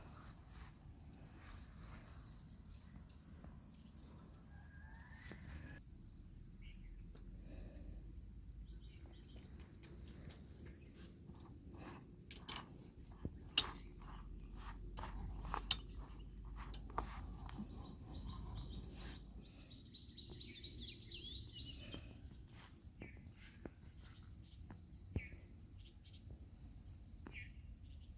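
Steady high-pitched insect chorus, with a cluster of sharp clicks and knocks about halfway through.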